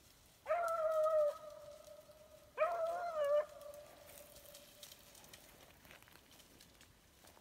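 Beagle baying while running a track: two long, drawn-out bawls about two seconds apart, the second fading out slowly.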